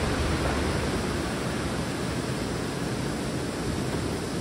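Steady heavy rain pouring down, an even rushing hiss.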